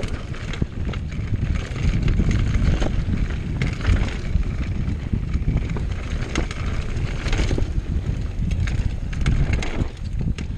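Mountain bike descending a rough downhill trail: wind buffeting the microphone over a steady rumble of tyres on the ground, with the bike rattling and knocking over bumps many times.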